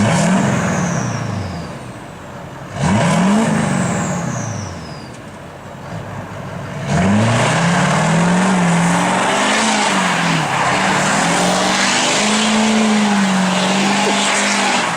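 Duramax LLY 6.6-litre turbo-diesel V8 on a custom smoke tune: revved hard twice, each rev followed by a falling turbo whistle, then run at high revs with a wavering pitch for about eight seconds before dropping off.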